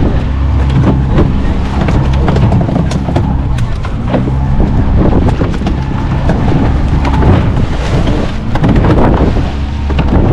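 A fishing boat's engine running steadily, with wind buffeting the microphone and scattered knocks.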